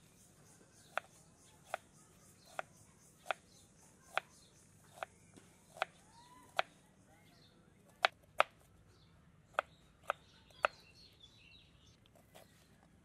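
Kitchen knife slicing through a red onion and knocking down onto a plastic cutting board: about a dozen sharp chops, roughly one a second, with a quick pair a little past the middle.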